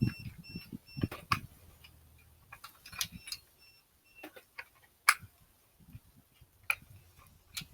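Rotary laser level giving short, evenly spaced high beeps, about three a second, near the start and again about three seconds in: its warning that it is out of level. Sharp clicks and knocks from handling the unit come in between.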